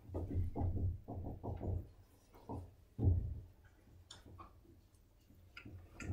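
Dry-erase marker writing on a whiteboard: a quick run of short knocks and strokes against the board, a louder knock about three seconds in, then only faint ticks.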